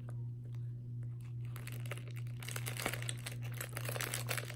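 Clear plastic wrapper crinkling in the hands as a gingerbread snack is handled, sparse at first and busier from about halfway through, over a steady low hum.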